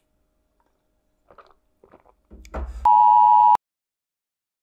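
Faint small sounds of a man drinking from a glass of water, then a short burst of noise cut off by a loud, steady electronic bleep tone lasting about two-thirds of a second, which stops suddenly.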